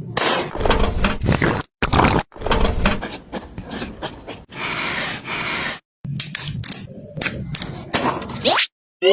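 A string of short scraping and knocking sounds of hand work, broken by abrupt cuts. Near the end come two quick rising whistles.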